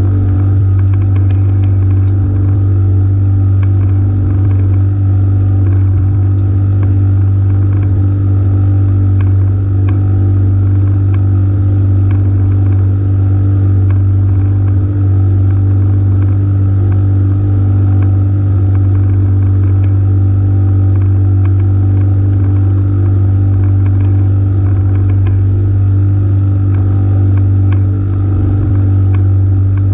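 A small engine running steadily at an even speed, a constant deep hum that does not rise or fall.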